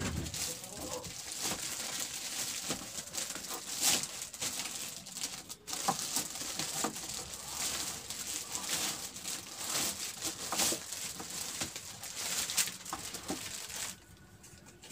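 Clear plastic wrapping crinkling and rustling as it is pulled off an electronic keyboard, with many sharp crackles, stopping about a second before the end.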